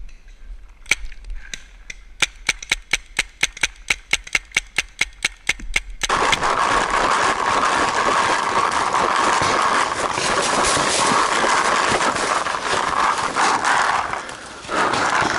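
Paintball marker firing: a couple of single shots, then a rapid string of about five shots a second for nearly four seconds. The sound then switches abruptly to a loud, steady rushing and rustling noise on the camera's microphone as the player moves.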